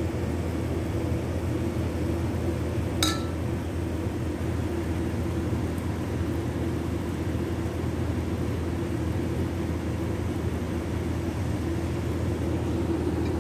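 Steady low mechanical hum in a kitchen, with one short metallic clink about three seconds in.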